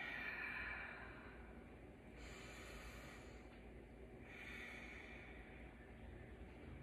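A woman breathing slowly and faintly, about three soft breaths a couple of seconds apart, as she relaxes at the end of a breathing exercise.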